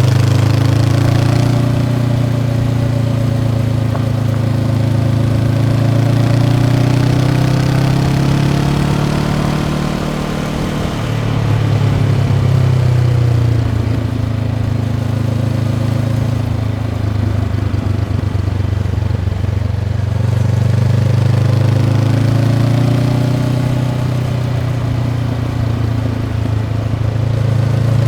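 Honda CB500X's 471 cc parallel-twin engine running through its stock exhaust under way, at a steady moderate pace. The engine note dips about ten seconds in as the throttle eases, then picks up again.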